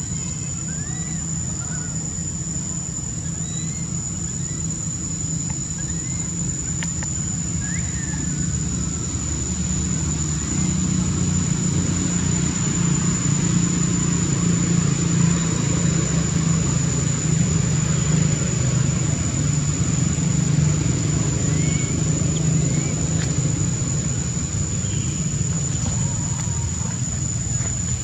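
A motor vehicle's engine running nearby, a low rumble that grows louder midway and then eases off. It plays over a steady high-pitched drone of insects.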